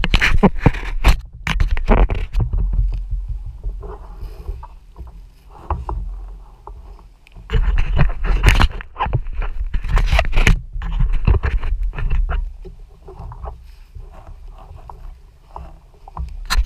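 Handling noise right at a kayak-mounted action camera: bursts of knocks and scrapes as hands and a striped bass brush against the camera, over a steady low rumble.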